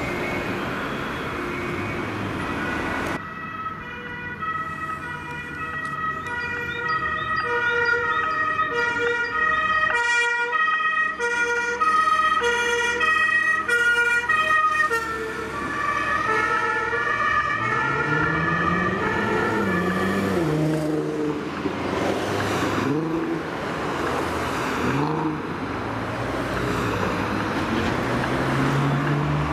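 German two-tone emergency siren (Martinshorn) on a fire service vehicle, starting about three seconds in and alternating steadily between its two pitches. About halfway both tones drop slightly as the vehicle passes. The siren fades out about twenty seconds in, leaving vehicle engines revving as they drive off.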